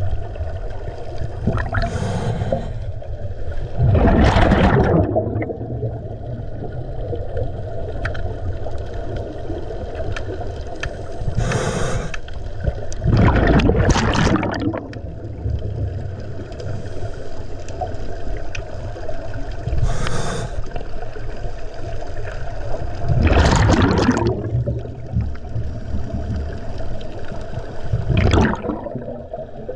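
Scuba regulator breathing underwater: a short hiss of inhalation followed about two seconds later by a louder, bubbling burst of exhaled air, three full breaths about every nine to ten seconds, over a steady low rumble.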